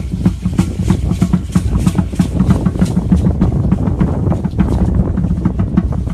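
Drumming for Aztec dancers: a run of close, rapid drum beats, with wind rumbling on the microphone underneath.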